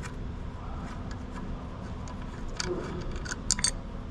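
A few sharp metal clicks and clacks in the second half, from hands working the fitting and cover on a Hale fire pump's air shift cylinder, over a steady low hum.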